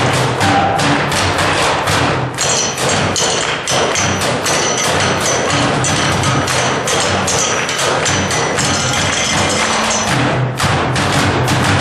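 Live percussion performance: fast, steady drumming with several hits a second, and a high ringing tone sustained through the middle.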